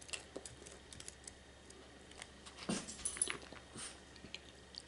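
Light clicks and scrapes of a plastic fork in a foam takeout container while eating rice, with a louder cluster of sounds just under three seconds in that includes a brief high squeak.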